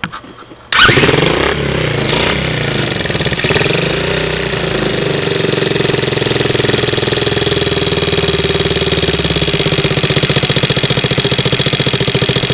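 Small air-cooled single-cylinder ATV engine catching about a second in on its 12 V DC-powered aftermarket CDI ignition, revving up and down briefly, then settling into a steady idle. It runs well on the direct-wired CDI.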